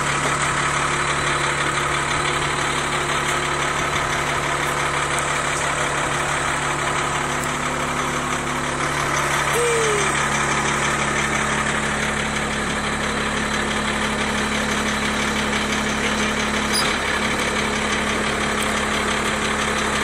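Fire truck's diesel engine idling with a steady low drone. Its hum shifts slightly lower about nine seconds in.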